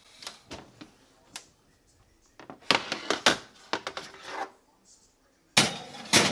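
Oven door pulled open with a run of metal clanks and rattles, then a ceramic baking dish set down on the wire oven rack with a sharp clatter near the end.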